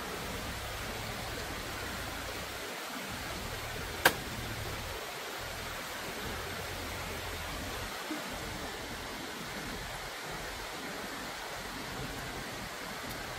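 Steady, even rushing noise with no clear pitch, broken by one sharp click about four seconds in.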